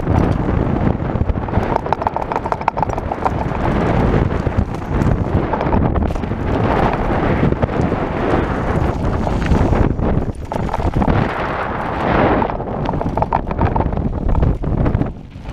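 Specialized SX mountain bike clattering down a rough dirt and gravel trail: a dense, irregular run of knocks and rattles over tyre noise on the loose surface, with wind buffeting the microphone.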